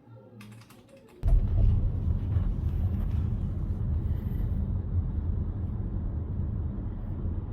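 A steady low rumbling noise that starts suddenly about a second in and holds.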